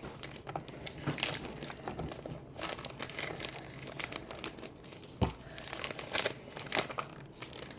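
Plastic cornstarch bag crinkling as it is handled and tipped out to pour, with scattered small clicks and one low thump about five seconds in.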